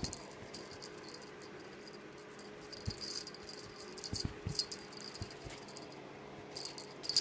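A jingling cat toy being batted and shaken by a kitten, rattling in several short bursts with a few soft thumps.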